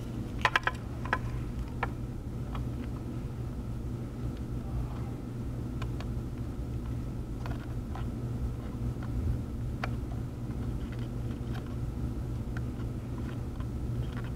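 Light clicks and taps of soldering tools on a circuit board while a charging port is soldered on, several close together about half a second to two seconds in and then scattered singly, over a steady low electrical hum.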